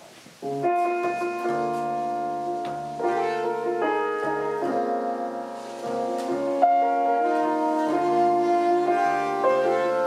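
Jazz ensemble music led by piano chords, starting about half a second in and growing fuller as it goes.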